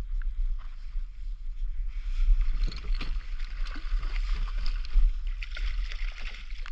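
Speckled trout thrashing and splashing at the water's surface beside a kayak as it is played in and netted, over a steady low rumble. The splashing starts about two seconds in and goes on in quick, irregular strokes.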